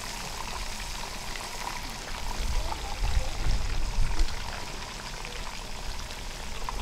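Whole spice-marinated mujair (Mozambique tilapia) deep-frying in hot oil in a wok: a steady sizzle with fine crackling. A few low bumps come about halfway through as a wooden spatula works among the fish.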